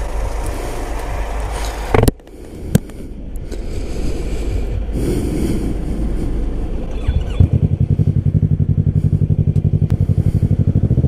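Parallel-twin sport motorcycle engine with an aftermarket exhaust idling, turning into a loud, evenly pulsing throb in the second half. Two sharp knocks sound about two seconds in.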